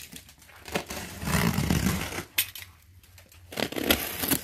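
Handling noise from a large cardboard box wrapped in plastic stretch film: irregular rustling with a few sharp knocks, busiest about a second in and again near the end.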